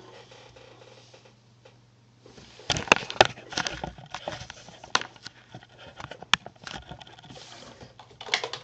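Computer keyboard keys clicking irregularly, a few loud keystrokes at first, then a quicker run of typing near the end, over a steady low electrical hum.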